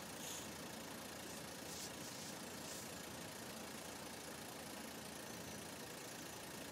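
Faint, steady engine hum with no distinct events, like distant idling or passing traffic.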